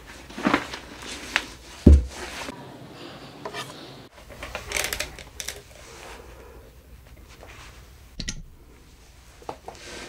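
Handling noise from a djembe and headphones: scattered rubs, rustles and clicks, with one low thud about two seconds in.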